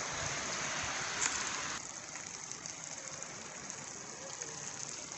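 Steady hiss of rain falling, with the small ticks of scattered drops; it drops abruptly to a softer patter about two seconds in.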